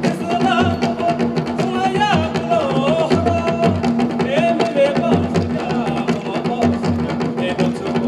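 Live folk dance music: a drum beating a steady repeating rhythm under a wavering melody that slides up and down in pitch.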